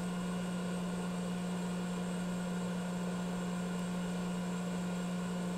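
Steady low electrical hum at one pitch over an even background hiss. No wire snips stand out above it.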